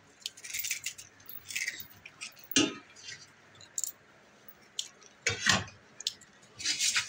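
Metal kitchen utensils being handled: scattered scrapes and clicks, with a sharper knock about two and a half seconds in and another about five and a half seconds in.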